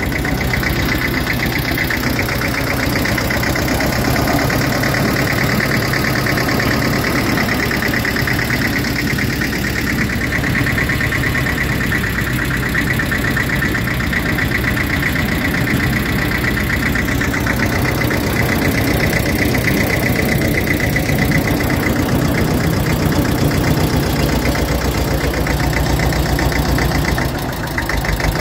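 The engine of a Dl8 narrow-gauge field-railway diesel locomotive, running steadily with an even pulsing beat while the locomotive is under way. The sound drops briefly near the end, then picks up again.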